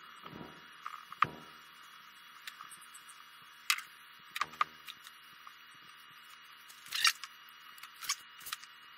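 Light handling noises at a workbench: a few short, sharp clicks and taps, spaced a second or more apart, over a faint steady background.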